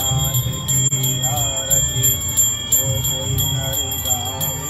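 A bell ringing rapidly and steadily, over devotional music with a singing voice.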